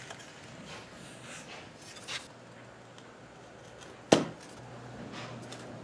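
Handling noise from a large woofer: faint rustles and a small click about two seconds in, then one sharp knock just after four seconds as the heavy magnet end of the speaker is set down on a glass-topped table.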